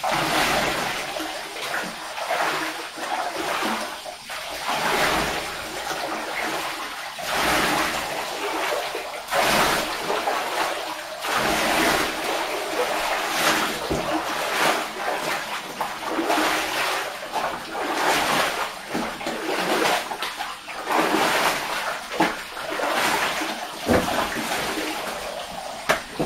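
Bathwater scooped with a bowl and poured over a dog standing in a filled bathtub, splashing again and again, with the water in the tub sloshing between pours.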